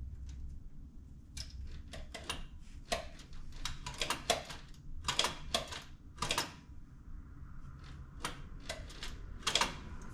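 Irregular light clicks and clinks of hand tools on metal fuel-line fittings, coming in small clusters.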